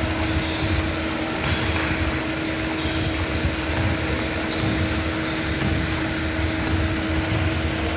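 Indoor basketball court ambience: a steady mechanical hum, with brief scattered squeaks and thuds from players and ball on the wooden court.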